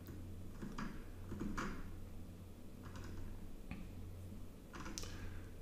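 Faint scattered clicks and taps of someone working at a computer, about one a second, over a low steady hum.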